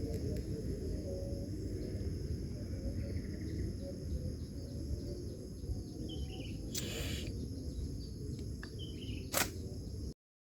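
Outdoor ambience: a steady high insect drone, likely crickets, over low rumbling noise, with a couple of short bird chirps after the middle. There is a brief rustle and a sharp click near the end.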